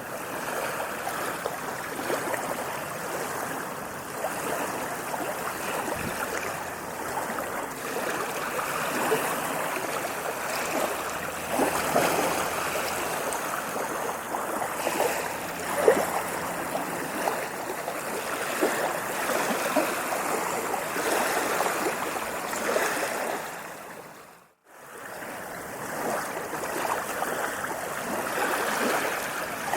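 Ocean waves washing in, a continuous rush and splash of water that swells and eases. About 24 seconds in it fades away to silence for a moment and then fades back in.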